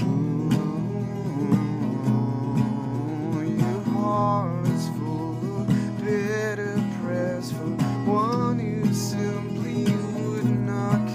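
Acoustic guitar strummed steadily, about once a second, while a man's voice sings a wordless melody with vibrato over it in a few phrases.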